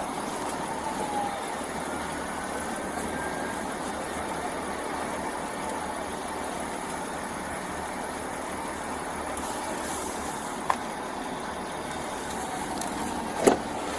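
Steady hum of an idling vehicle engine with traffic noise. Two short sharp clicks cut through it, one about three-quarters of the way in and a louder one near the end.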